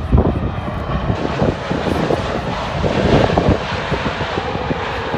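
Jet airliner engines of a landing aircraft, a steady broad rush with deep rumble, the higher hiss growing fuller about a second in.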